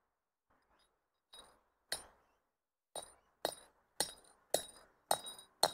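A steel hammer strikes the threaded end of a hex-nut sleeve bolt, driving it through a steel climbing hanger into a drilled hole in rock. Sharp ringing metal-on-metal clinks: a light tap, a blow, then six blows about every half second.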